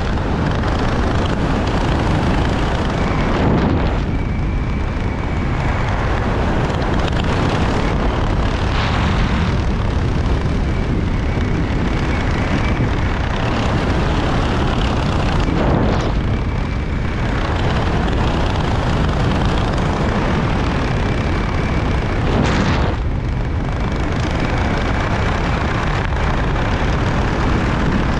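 Loud, steady rush of wind buffeting the microphone, with a few brief swells and a faint high whistle running through it.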